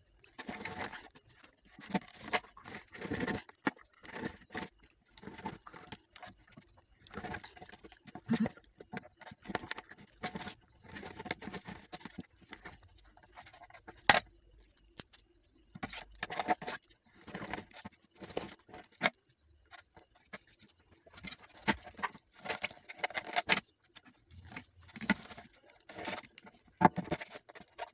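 Kitchen knife cutting a whole fish into pieces on a ceramic plate: irregular scraping and knocking of the blade through the fish and against the plate, with a few sharp clicks.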